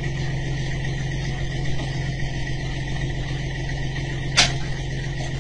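Heavy diesel engine running steadily at idle, with one short sharp crack about four seconds in.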